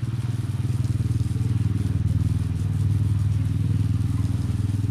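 A small engine running steadily, a low, fast-pulsing hum that gets a little louder in the middle.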